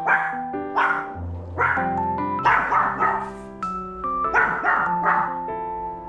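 Pomeranian barking in repeated short volleys at the front door: alert barks at a small noise from outside. Light background music plays throughout.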